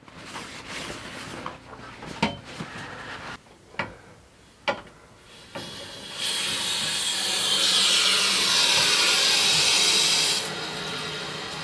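A few clicks and knocks, then from about six seconds in a loud, steady hiss of air being forced out of newly plumbed copper water lines as the supply is turned on. It drops off sharply after about four seconds to a quieter hiss. Air leaving a freshly filled line this way is normal.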